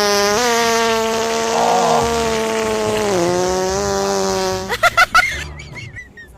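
Long, drawn-out fart sound from a remote-controlled fart machine: a steady buzzing rasp that dips a little in pitch about three seconds in and cuts off about four and a half seconds in. A few short squeaks and faint high chirps follow.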